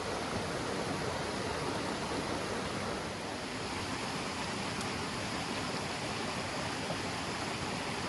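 Steady rushing of a mountain stream running over rocks and small cascades into a pool.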